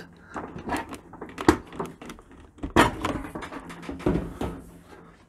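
Stainless steel front panel of a Bosch dishwasher door being pulled off by hand: a series of sharp metal knocks and clicks with some rattling, the loudest about a second and a half in and again near three seconds.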